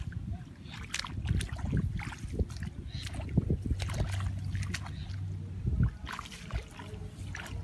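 Hands and bare feet squelching and splashing in shallow muddy water among wet grass while groping for fish: a string of short wet splashes and clicks over a steady low rumble.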